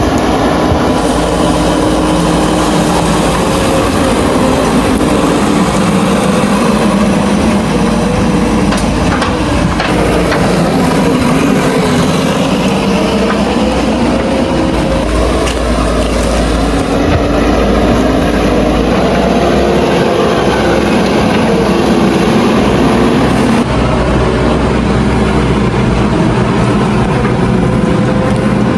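Heavy construction machinery running under load, a continuous loud engine drone with wavering pitch. The sound changes abruptly three times, about ten, seventeen and twenty-three seconds in.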